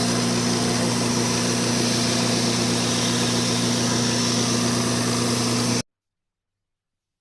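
An electric power tool running at a steady speed, a steady hum with an even hiss over it, cut off abruptly about six seconds in and followed by dead silence.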